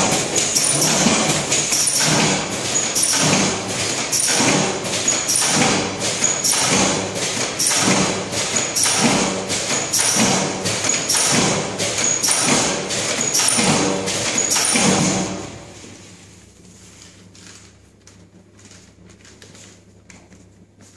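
Milk powder sachet packaging machine cycling, with a sharp knock about one and a half times a second in a steady rhythm. About fifteen seconds in the cycling stops, leaving a faint low hum.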